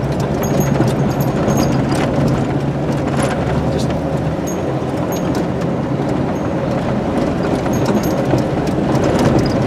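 Jeep engine running steadily and tyres rolling on a dirt road, heard from inside the cabin, with scattered light rattles and clicks.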